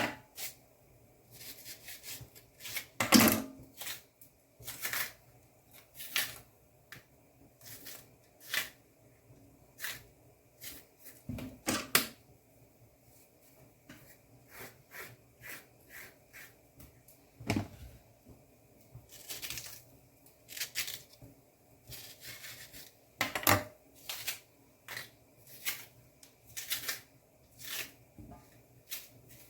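Irregular clicks, taps and knocks of kitchen food preparation, knife and utensils being handled, with a few louder knocks now and then.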